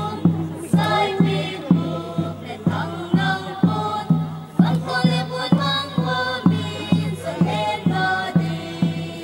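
Traditional Kuki dance music: a group of voices chanting a song over a steady, even drum beat.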